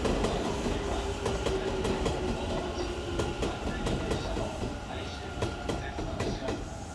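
Electric train running through the station: wheels clicking over rail joints over a low rumble, with a steady tone that fades out about three seconds in.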